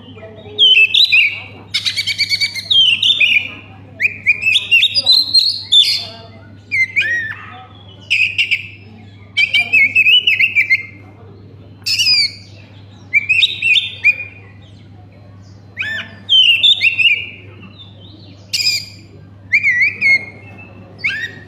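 Oriental magpie-robin (kacer) singing in the rapid, frantic 'konslet' style: loud bursts of quick whistled and chattering phrases about a second long, repeated every second or two with short pauses. A steady low hum runs underneath.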